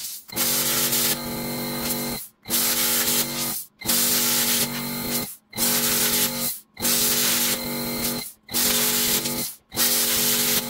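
Plasma cutter cutting through sheet steel: a loud, steady hiss of the arc and air over a buzzing hum. It cuts off briefly to silence about every one and a half seconds, seven times in all.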